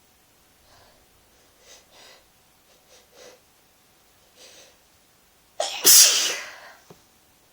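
A person with a head cold sneezing once, loudly, after a few faint breaths building up to it.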